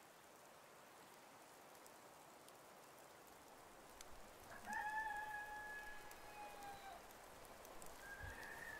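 Faint outdoor ambience: a soft steady hiss with a few light ticks like dripping. About four and a half seconds in, a steady whistle-like tone is held for about two seconds, and a shorter one sounds near the end.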